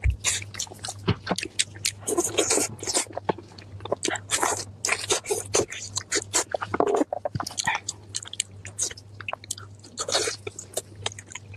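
Close-miked crunching and chewing of crispy food: many irregular crisp crackles and bites in quick succession, over a faint steady low hum.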